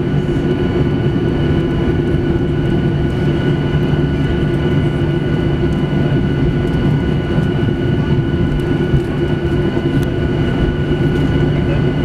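Steady cabin noise inside a Boeing 737-800 on the ground after landing: a low rolling rumble with the steady hum and whine of its CFM56 engines.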